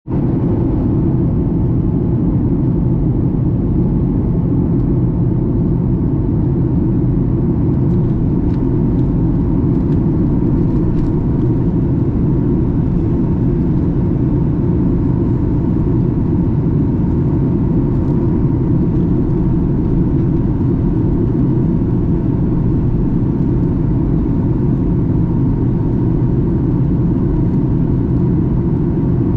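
Steady cabin noise inside a Boeing 737-800 in flight: the low rumble of its CFM56-7B turbofan engines and rushing air, with a faint steady tone riding on top.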